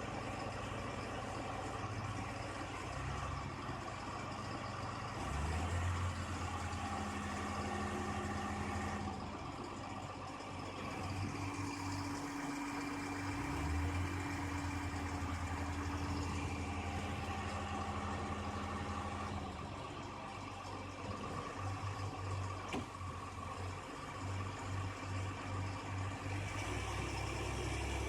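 Heavy machine's diesel engine running, its speed changing up and down several times, with an uneven throbbing toward the end.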